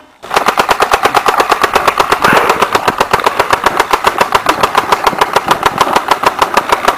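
Automatic gunfire: one long, unbroken machine-gun burst at about eight to ten shots a second, starting abruptly.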